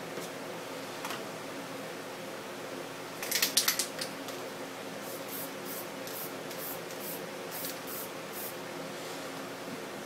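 Aerosol spray-paint can fired in short bursts: a tight cluster of hisses about three seconds in, then a string of brief hisses a few times a second. A steady low hum runs underneath.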